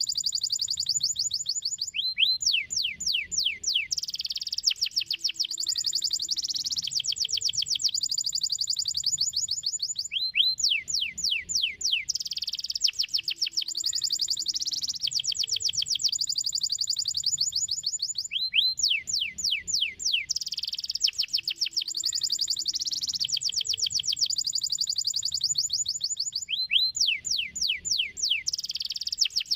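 Domestic canary singing: fast rolling trills broken about every eight seconds by a run of falling whistled swoops, the same song phrase coming round again and again.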